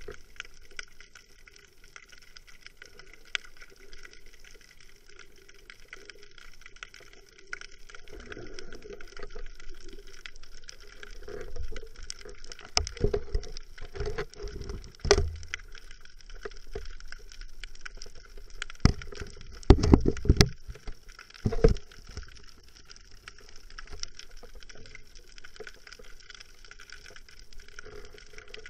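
Underwater ambience heard through the camera: a steady crackle with scattered sharp clicks, and a few louder low rumbling bursts and knocks around the middle, loudest about twenty seconds in.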